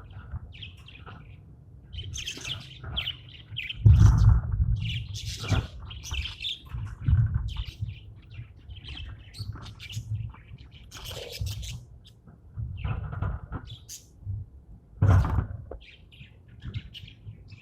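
Pet budgies chirping and chattering in many short high calls, with a few louder low thumps, about four over the stretch.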